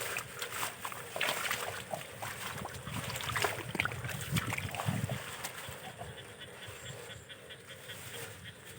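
Irregular splashing and sloshing of water from hands working in shallow water, busiest in the first few seconds and thinning out towards the end.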